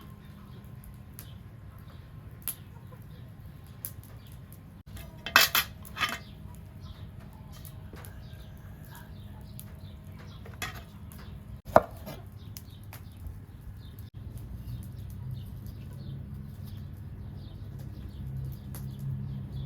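Cooking pots and utensils clattering. A few light knocks, then a loud clatter of several strikes about five seconds in and a single sharp knock near the twelve-second mark, over a steady low rumble.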